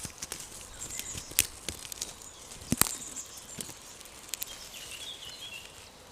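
Irregular sharp clicks and crackles, the loudest at the start and about three seconds in, with a short bird chirp about five seconds in.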